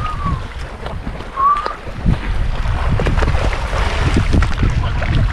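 Wind rumbling on the microphone over sea water splashing and churning as swimmers kick and stroke through it beside the boat.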